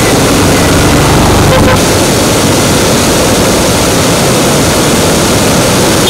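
Muddy floodwater in a swollen stream rushing over rocks and a low ledge: a loud, steady, unbroken wash of water noise.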